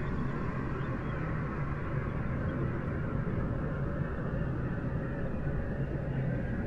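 A steady, dense noise drone with a faint low hum band and a hissy upper band, without breaks or distinct events. It is a heavily processed ambient soundscape made from spacecraft recordings of planetary radio and plasma waves.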